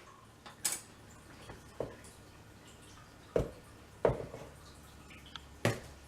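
Bowls and utensils being handled on a kitchen counter: about five separate sharp knocks and clinks, spread out with quiet between them.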